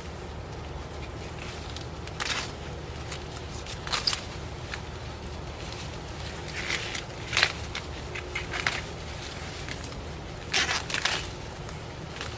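Corn plants rustling and crackling in short bursts, about five times, as sweet corn ears are picked off the stalks, over a steady low rumble.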